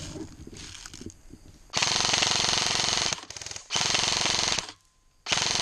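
Airsoft rifles firing on full auto: three long bursts of rapid shots, the first the longest, with a few short stuttering shots between the first two bursts. The first burst starts about a second and a half in, after some quiet rustling.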